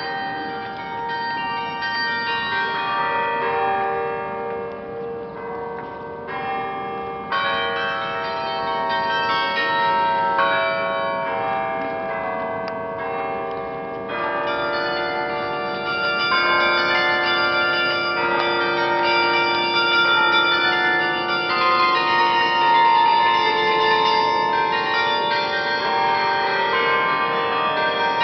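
Church bells ringing: many tuned bells struck in quick succession, their notes overlapping and ringing on. The ringing grows louder about halfway through.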